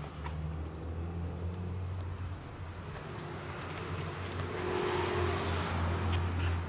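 A car going by on the street, its engine and tyre noise swelling over the second half and peaking near the end, over a steady low hum. A few faint clicks can be heard.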